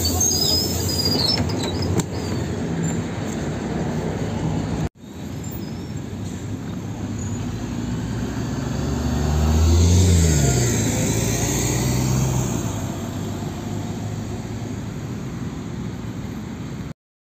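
NefAZ 5299 city bus with its Cummins ISBe diesel engine, heard running from inside by the door. After a short break it is heard from outside pulling away, the engine note rising and then falling, loudest about ten seconds in.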